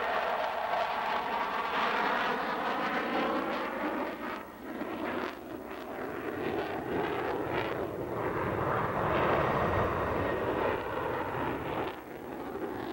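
Sukhoi Su-37 fighter jet's twin engines heard from the ground as it maneuvers overhead: a continuous broad jet rush with a shifting, phasing quality for the first few seconds. It dips briefly about four seconds in, then swells again with a deeper rumble around nine to ten seconds.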